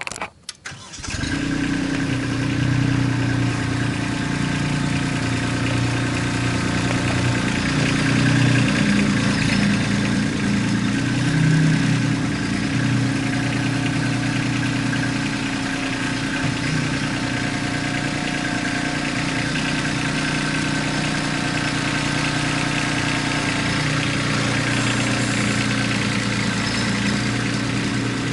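Kubota B2650 compact tractor's diesel engine running steadily, starting about a second in and swelling slightly a couple of times.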